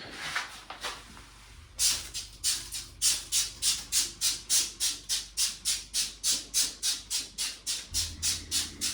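Trigger spray bottle of Viakal limescale cleaner pumped rapidly, a quick hiss of spray about three or four times a second, starting about two seconds in.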